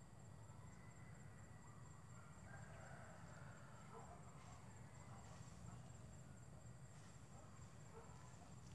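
Near silence: faint outdoor background with a low rumble and a thin, steady, high insect trill.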